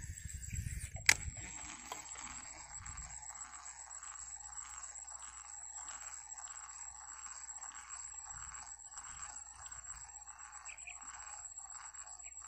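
Faint outdoor ambience of insects calling: a steady high-pitched drone with a softer chorus pulsing about twice a second. A single sharp click comes about a second in.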